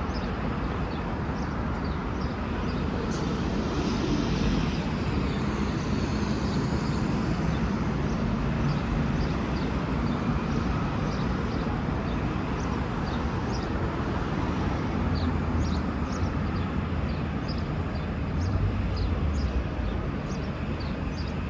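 V/Line VLocity diesel railcars running at a station, a steady diesel rumble whose engine tones rise and fall.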